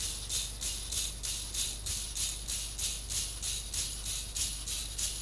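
The leg servos of a Kondo KMR-M6 six-legged robot whir in short rhythmic pulses, about three a second, as it walks through a left turn.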